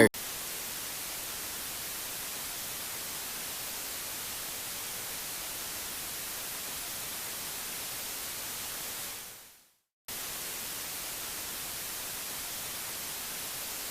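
Steady, even hiss like TV static. It fades out about nine seconds in, stops for about half a second, then starts again abruptly at the same level.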